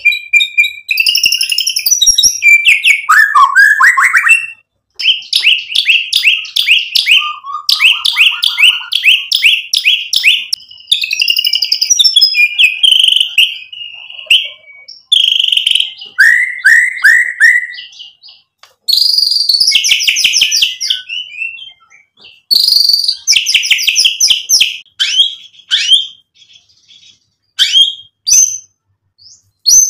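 White-rumped shama in full song, loud and varied: phrases of rapid repeated notes, trills and whistles broken by short pauses, sparser near the end.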